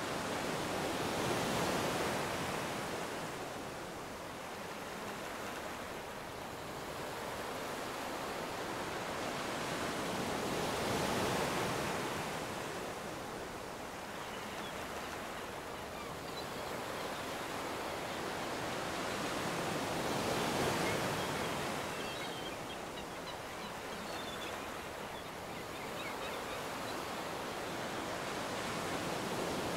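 Sea waves surging and washing ashore, the rush swelling and ebbing slowly, peaking three times about ten seconds apart.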